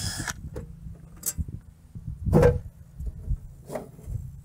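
A power drill's whir cuts off just at the start, then a few scattered metal knocks and clicks as the electrical panel's dead-front cover is unscrewed and handled for removal, the loudest knock about two and a half seconds in.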